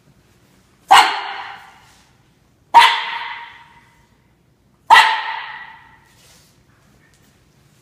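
A young Norfolk Terrier barking, three sharp barks about two seconds apart, each trailing off in an echo off the hard floor and walls.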